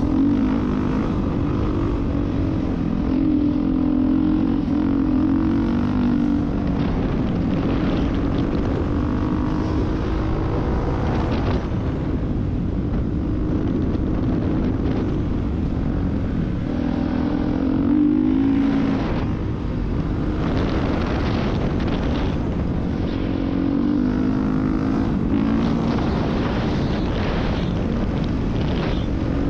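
Off-road vehicle engine running at speed across sand dunes, its note swelling and easing with the throttle, with wind rushing over the microphone.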